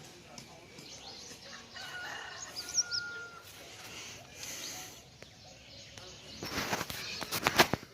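Birds chirping in short rising calls, with a brief steady whistle in the middle, then a louder, rough crackling burst over the last second and a half.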